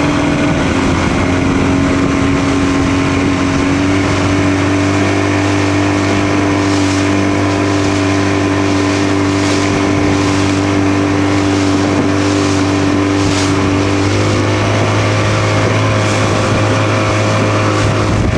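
A boat's engine running steadily at a constant speed while under way, with small shifts in pitch about a second in and again near fifteen seconds, over a hiss of wind and water.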